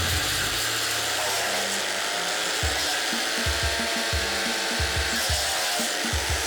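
Vermeer BC700XL brush chipper running and chewing through branches, with a steady mechanical drone and irregular low knocks as wood feeds into it.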